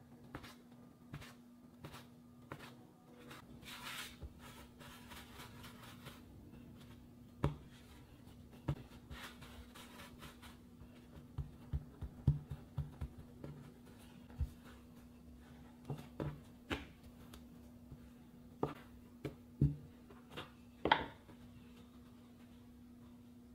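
Plastic dough scraper tapping down through a log of dough onto a bamboo cutting board, then scattered soft knocks and taps as the dough pieces are handled and pressed flat on the board. A faint steady low hum runs underneath.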